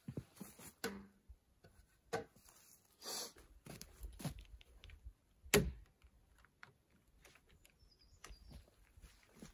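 Wood-handling knocks and scrapes as a peeled log rail is worked against a porch post and held with a bar clamp. There are a string of light knocks and scrapes, one sharp knock about five and a half seconds in that is the loudest, and then small clicks.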